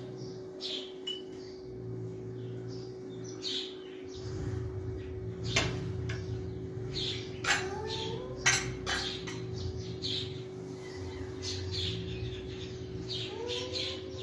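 A cat making repeated short chirps and a couple of rising, meow-like trills, mixed with sharp clicks and a steady low hum.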